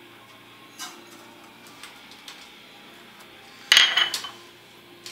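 Chopped garlic frying quietly in olive oil in a pan, with a few light clicks of kitchenware. About three-quarters of the way in there is one loud, sharp clatter with a brief ring, as a dish or utensil is put down.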